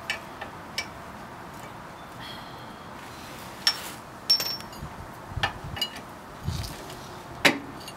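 Hand tools and hardware clinking and knocking against the Jeep's lower shock mount, a scattered series of sharp metallic clicks, a few ringing briefly.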